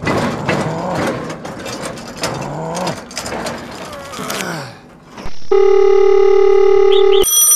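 A deep voice groans and grunts with strain over plastic clicking and rattling. About five and a half seconds in, a loud electronic phone ringtone starts, a steady chord of tones, and it switches to a higher ringing tone near the end.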